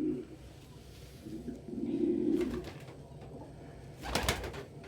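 Domestic pigeon cooing, a low coo about a second and a half in. About four seconds in comes a brief, louder rustling clatter.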